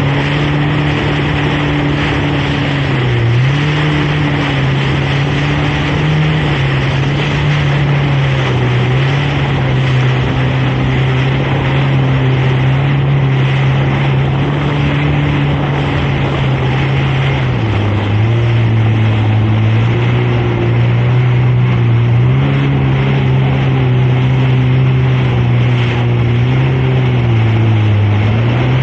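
Jet ski engine running at speed over the hiss of water spray. Its pitch dips and rises again several times through the stretch.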